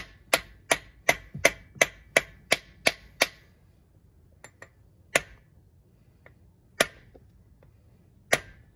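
Small hammer tapping a core (freeze) plug on a Chevy 454 big-block engine block, metal on metal with a short ring. About ten quick taps, roughly three a second, then after a pause single taps about every second and a half.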